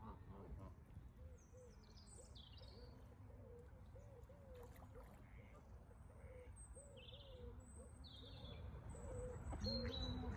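Faint bird calls: a steady run of short, low calls about twice a second, with a few high chirps and whistles from small birds above them, over a low background rumble.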